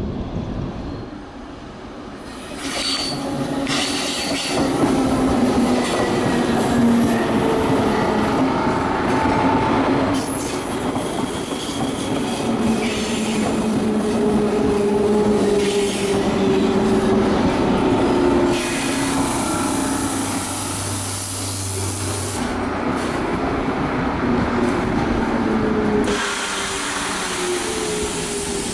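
Electric metro train of the CBTU Belo Horizonte line passing close by on a curve, its wheels running on the rails with several steady whining tones that drift up and down in pitch.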